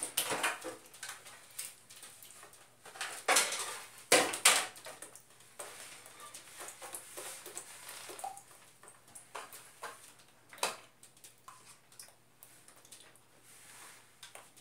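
Scattered plastic clicks and knocks from handling the front casing of a split-type air conditioner's indoor unit as it is worked loose and taken off, with a few sharper knocks about three to four and a half seconds in.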